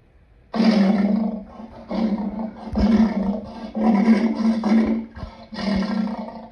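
A lion roaring in a bout of repeated calls: a longer first roar about half a second in, then about five shorter grunting roars roughly a second apart.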